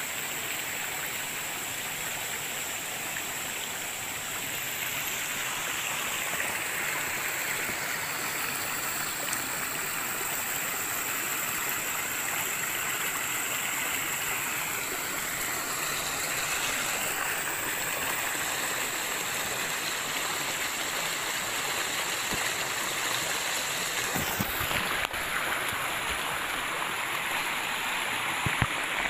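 River rapids: water rushing steadily over rocks in a small forest river.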